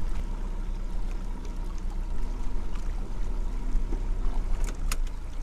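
Boat's outboard motor running steadily at trolling speed, a low even hum, with a couple of sharp clicks near the end.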